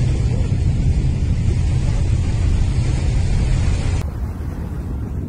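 Wind buffeting the microphone: a loud, steady low rumble with hiss over it. About four seconds in it cuts to another recording of the same kind, slightly quieter and with less hiss.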